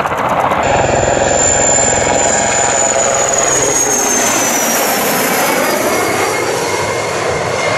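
IAR 330 Puma military helicopter making a low pass overhead: rapid steady rotor-blade chop with a high turbine whine that falls in pitch as it goes by, about halfway through.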